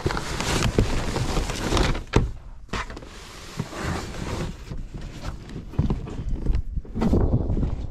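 A large plastic storage tote being pulled out of a truck's back seat and carried: rustling and scraping, with a few sharp knocks and thuds.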